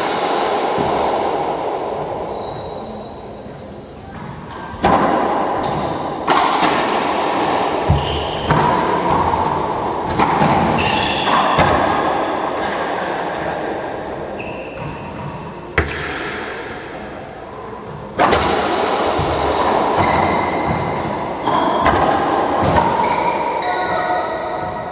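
Racquetball rally: about a dozen sharp cracks of the ball off racquets and walls, each ringing with the echo of the enclosed court. Short high squeaks of sneakers on the hardwood floor come between the hits.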